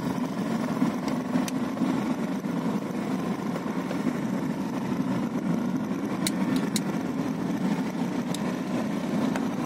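Steady engine and road noise of a moving vehicle, heard from on board, with a few faint clicks about one and a half seconds in and again past the middle.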